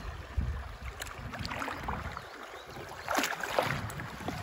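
River water rushing and splashing around a small drifting boat as it passes through a shallow riffle, with a couple of louder splashes about three seconds in.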